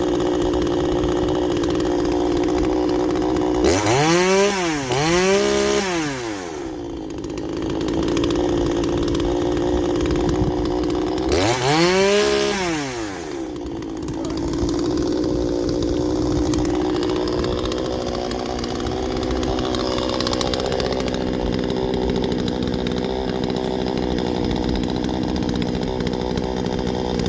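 Two-stroke chainsaw engine idling steadily, revved up and back down twice in quick succession about four seconds in, then once more near the middle.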